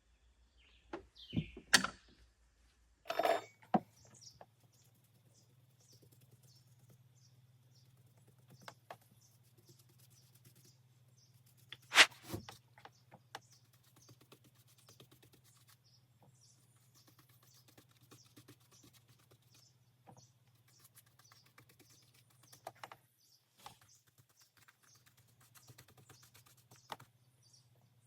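Occasional knocks and clicks, the loudest about twelve seconds in, with birds chirping and a faint steady low hum.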